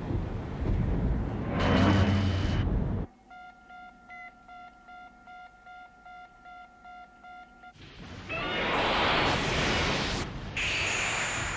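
Film sound effects: a loud rumbling rush for about three seconds, then quiet electronic warning beeps from control-room equipment, about two a second over a steady two-tone hum, then the loud rushing rumble again from about eight seconds in.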